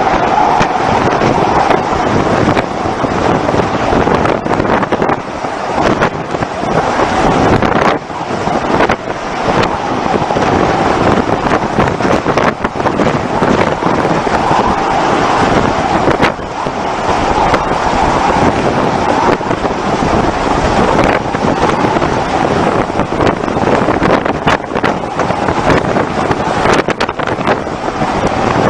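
Storm wind rushing hard over the microphone, loud and unbroken, with frequent short buffeting knocks as gusts hit it.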